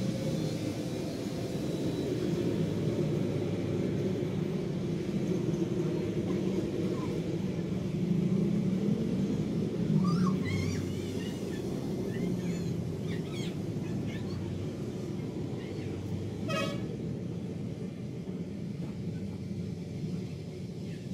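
Steady low rumble of a large hand-spun potter's wheel turning, with no motor driving it. A few high chirps come near the middle, and a short horn toot sounds about two-thirds of the way through.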